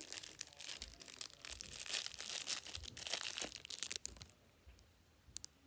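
Clear plastic wrapper crinkling and rustling as it is handled, irregular and crackly, dying away about four seconds in.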